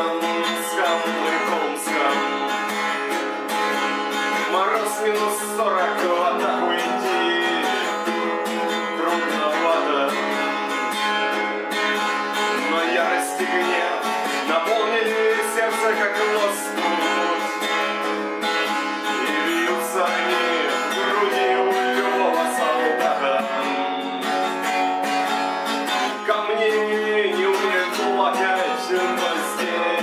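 Music: a song accompaniment with strummed acoustic guitar.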